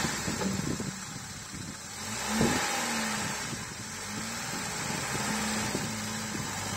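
Lada Niva's engine pulling at low speed as it crawls over rocks, its pitch rising and falling with the throttle. Irregular knocks and crunches come from tyres and underbody on stone, with one louder knock about two and a half seconds in.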